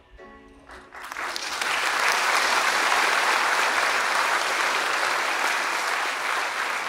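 Theatre audience applauding at the end of a dance performance: the clapping starts about a second in, swells quickly to a steady full applause and begins to thin near the end.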